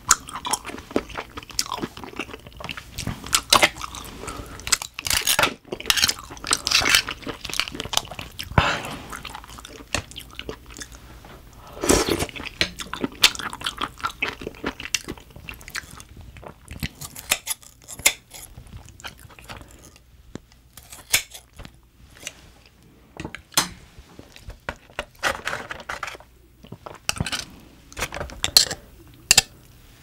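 Close-miked chewing and mouth sounds of eating steamed clams and other shellfish, with irregular clicks of metal tongs and kitchen scissors against shells.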